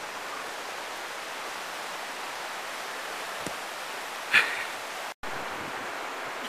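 A thrown rock landing on grassy dirt with a dull thud about three and a half seconds in, followed a second later by a short, sharp, louder sound, over steady wind noise on the microphone. The sound cuts out for a moment near the end.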